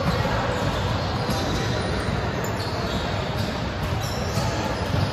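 Sports-hall din from volleyball play on hardwood courts: balls being hit and bouncing, with a few sharper impacts standing out.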